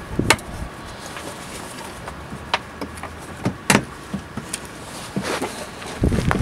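Hands working on parts under the back of a car: scattered clicks, taps and light knocks of plastic and metal being handled, with a louder dull thump near the end.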